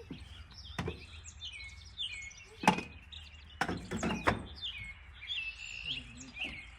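Several sharp knocks as a wooden batten is nailed onto a plywood wall: one about a second in, the loudest just under three seconds in, and a quick cluster of three around four seconds. Birds chirp repeatedly throughout.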